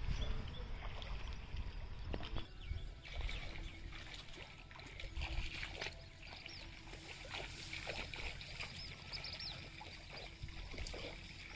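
Faint outdoor ambience: a steady low rumble with scattered rustles and clicks as bundles of paddy seedlings are handled, and a few short high bird chirps in the middle and later part.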